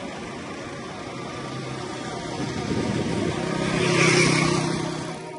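Motor vehicle travelling on a road: steady engine and road noise that swells to its loudest about four seconds in and then eases.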